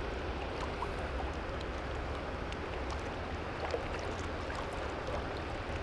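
Steady rush of flowing water with wind rumbling on the microphone, and a few faint light ticks.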